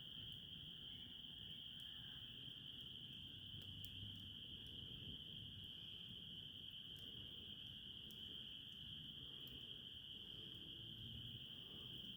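A chorus of crickets trilling in one steady, unbroken high-pitched drone, faint, with a few scattered soft clicks.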